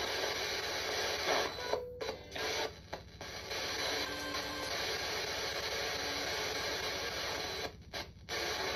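Radio static hissing steadily with a fast flicker, cutting out briefly twice, about two seconds in and near the end, like a radio sweeping between stations.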